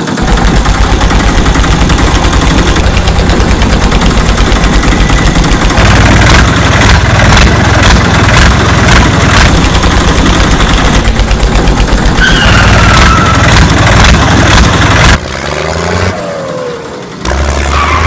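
Diesel tractor engine sound, chugging fast and hard as if pulling under load. It drops away briefly about 15 seconds in.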